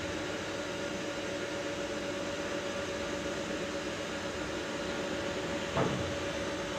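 CNC vertical milling machine running with a steady hum and a steady tone while the end mill feeds slowly down toward the workpiece. A short knock sounds near the end.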